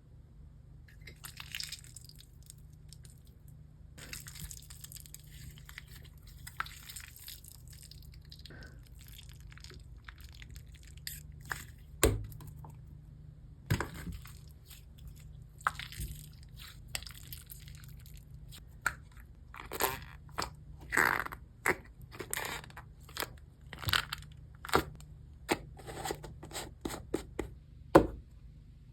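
Nickelodeon mint-chocolate-scented slime being squeezed and pressed, making squelching fart-like noises and small crackling pops in irregular bursts. The bursts come thicker in the last third, with a sharp pop near the end the loudest.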